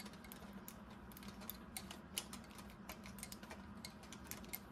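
Faint, irregular small clicks and rattles as a tripod ball head is screwed onto the top of a tripod. The rattling comes from tripod parts left loose.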